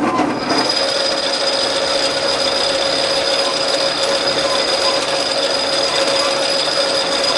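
Small metal lathe switched on and running steadily, its spindle and gearing giving a steady whine over a dense mechanical rattle.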